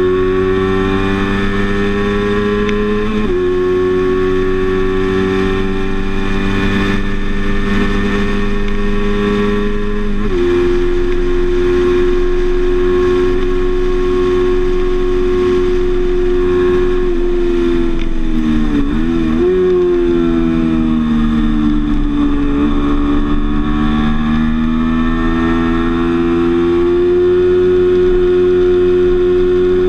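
Sport motorcycle engine running hard at high revs, its pitch held mostly steady with a couple of small steps. Past the middle the pitch wavers and drops as the bike slows, then climbs steadily back up.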